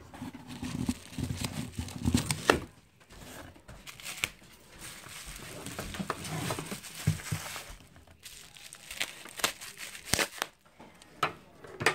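Packaging being cut open with scissors: plastic wrapping crinkling and tearing, with scattered sharp clicks and knocks.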